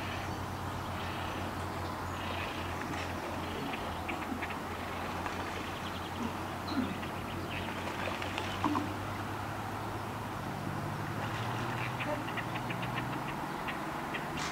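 A steady low hum, like a distant engine, with a second slightly higher drone joining about ten seconds in. Faint scattered bird chirps and ticks sound over it.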